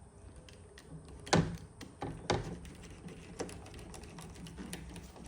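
A metal spline roller working rubber spline into a screen frame's groove, with scattered small clicks and two louder knocks about a second and a half and two and a half seconds in.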